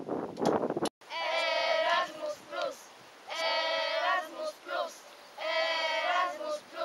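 A couple of blacksmith's hammer strikes on an anvil. After a sudden cut about a second in, children's voices sing a slow tune of long held notes, each phrase followed by a couple of short notes.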